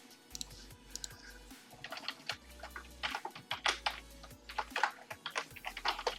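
Typing on a computer keyboard: irregular quick keystrokes, sparse at first and coming thicker from about two seconds in.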